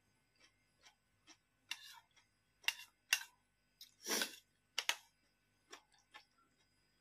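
A metal spoon clicking and scraping against a bowl while eating, in short irregular taps, with a longer, louder sound a little after four seconds in.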